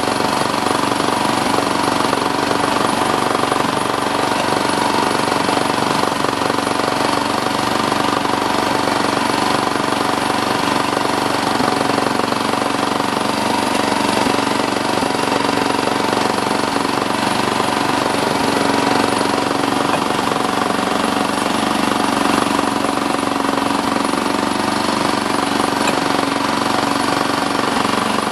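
Miniature railway train in motion on 7¼-inch gauge track: a loud, rapid, unbroken rattle of wheels and coach bodywork, over a steady drone.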